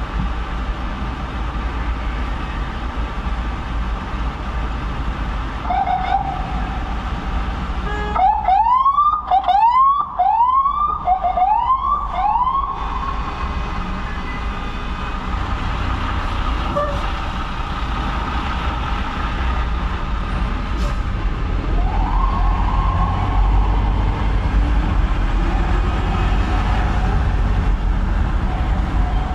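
Ambulance siren giving a run of short rising-and-falling sweeps, about six in four seconds, a third of the way in, then a single rising sweep later, over the steady rumble of city traffic.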